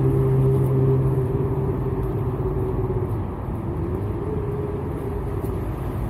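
A motor vehicle running with a steady low engine hum. The hum tones fade about a second in, leaving a low rumble.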